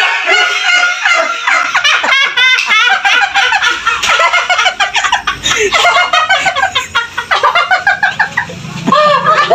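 High-pitched laughter from people in a small room, in fast cackling runs, with a quick burst of repeated laughs about two seconds in.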